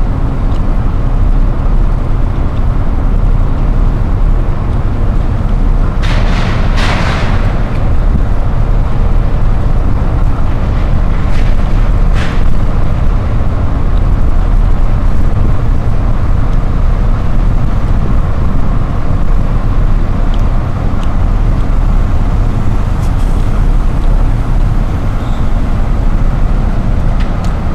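Steady, loud low rumble aboard a car ferry: its engines mixed with wind on the microphone, with a brief hiss about six seconds in.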